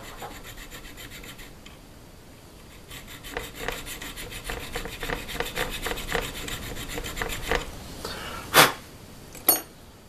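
Hand dovetail file rasping back and forth across the steel of a pistol slide's rear-sight dovetail, cleaning out the cut so a new sight will fit. It goes in quick rhythmic strokes, with a short pause about two seconds in. Near the end come two brief, louder sounds, the first the loudest.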